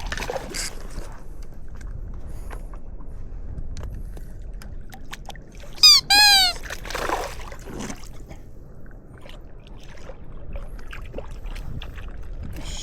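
Water lapping and trickling around a stand-up paddleboard, with small knocks and splashes. About six seconds in comes a very loud, short, high-pitched squeal in two quick parts, followed by a brief swish.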